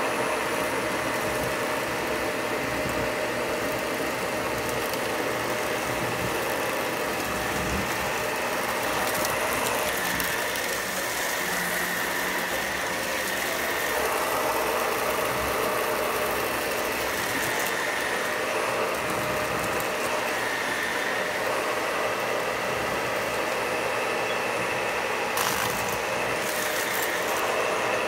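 Shark Professional Lift-Away upright vacuum running steadily as it sucks up dry dirt and fluff from a hard floor.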